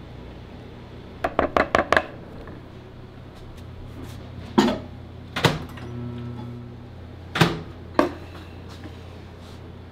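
Microwave oven being worked: a quick run of five clicks about a second in, then a few sharp knocks and thunks from its door and from a glass bowl handled on a stone counter.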